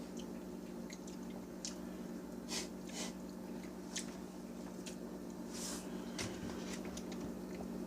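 Faint wet mouth sounds, a few scattered lip smacks and clicks and a short breath, from a man after eating a scorpion pepper, over a steady low electrical hum.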